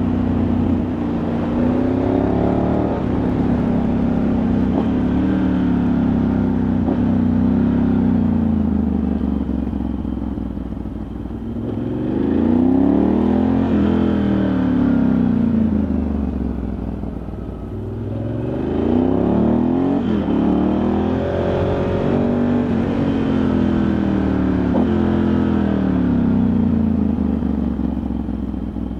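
Ducati Multistrada 1100S's air-cooled L-twin engine pulling the bike along a mountain road, its revs repeatedly rising and falling through throttle changes, easing off twice to a quieter stretch before pulling again.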